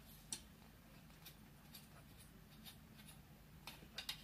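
Faint, scattered clicks and taps of a scissor-arm microphone stand and its pop filter clamp being handled and fitted together, with one sharper click shortly after the start and a quick pair near the end.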